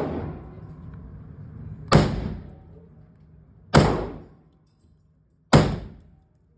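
FN PS90 carbine firing 5.7×28mm rounds: three single shots, evenly spaced about two seconds apart, each with a short ringing tail.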